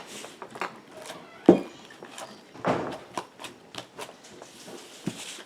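Overactivated slime being scraped and pulled out of a bowl by hand: irregular sticky clicks and squelches, with a sharp knock against the bowl about a second and a half in.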